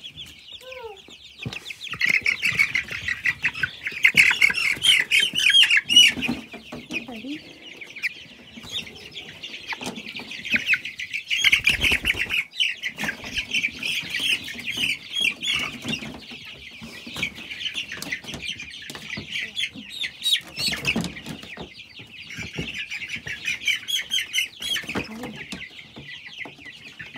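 A flock of chicks peeping shrilly and almost without pause, as many short overlapping chirps. Wing flapping, scuffling and thumps come in as the birds are caught by hand.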